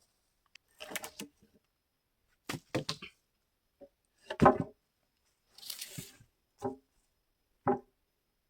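Cut wooden blocks being knocked together and set down: about seven separate wooden knocks at irregular intervals, the loudest about four and a half seconds in, with a brief scrape about six seconds in.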